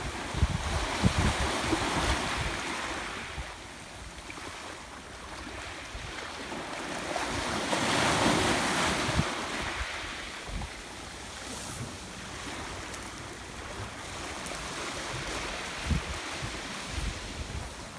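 Sea waves washing in, the surf swelling near the start and again to a peak about eight seconds in, with wind buffeting the microphone.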